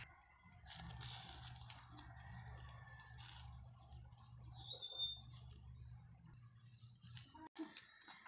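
Thin plastic film crinkling and rustling in the hands as it is handled and stretched, in many small crackles. A faint low steady hum lies underneath and cuts off near the end.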